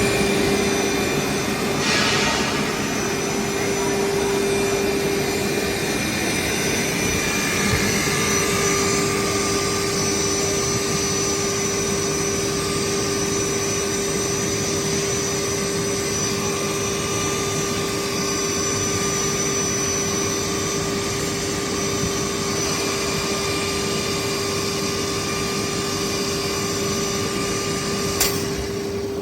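CNC woodworking router running: a steady high spindle whine over a broad rushing noise. The whine dips briefly about six seconds in, and there is a short click near the end.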